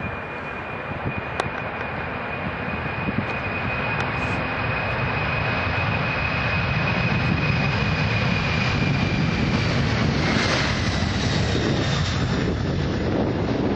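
Boeing 747 freighter's four jet engines at take-off power during the take-off roll: a steady high whine over a rumble that grows louder. About ten seconds in, the whine drops in pitch as the jet passes and rotates for lift-off.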